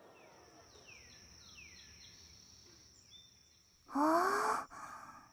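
Faint outdoor ambience of a steady high hiss with a few short bird chirps falling in pitch. About four seconds in, a loud, short, breathy vocal sound rising in pitch, like a surprised gasp, then a softer breath.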